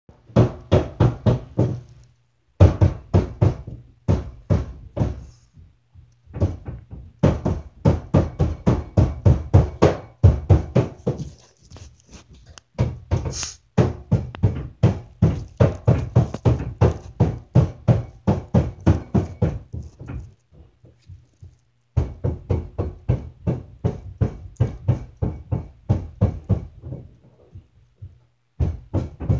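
Roofers hammering on the roof overhead: rapid, evenly spaced knocks, about four to five a second, in runs of a few seconds broken by short pauses.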